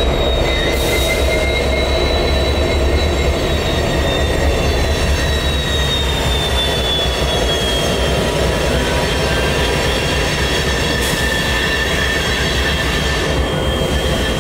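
Union Pacific freight train backing a string of loaded rock cars, its steel wheels squealing on the curve in a high, slowly falling tone over a steady low rumble.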